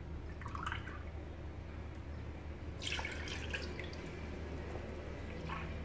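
Milk poured from a cup into pancake batter in a mixing bowl, in short splashing pours. The loudest pour comes about three seconds in, over a low steady hum.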